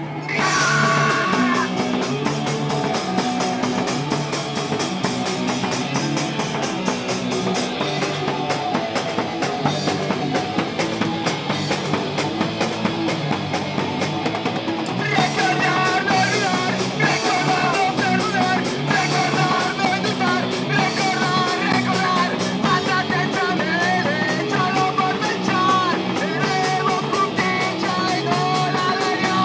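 Punk band playing live through amplifiers: distorted electric guitars, bass and drum kit crash in together under a second in and drive on at a fast rock beat. A shouted singing voice comes in about halfway through.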